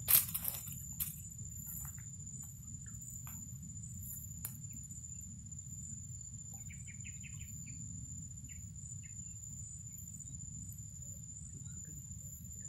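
A steady high-pitched insect drone, typical of a cricket, over a low outdoor rumble. A sharp knock at the start is followed by a few light clicks as fishing tackle is handled.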